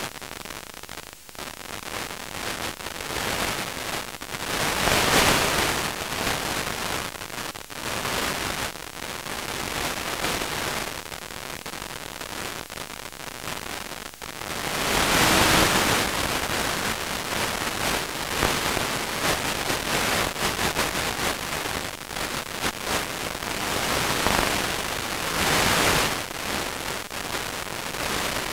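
Crackling hiss of static on the analog FPV video link's audio channel, swelling and fading irregularly with no steady tone.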